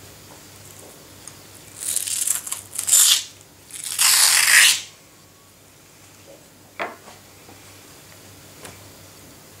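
Dark skin being torn off a raw witch flounder by hand, in three tearing pulls about two, three and four seconds in, the last the longest and loudest. A single short knock follows about seven seconds in.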